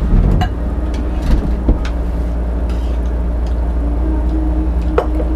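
A steady low rumble throughout, with a few short clicks and knocks of tableware from people eating at a table.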